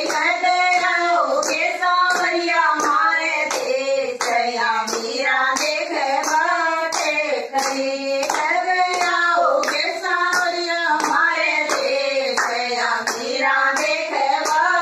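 Women singing a devotional folk song together, keeping time with hand claps about twice a second.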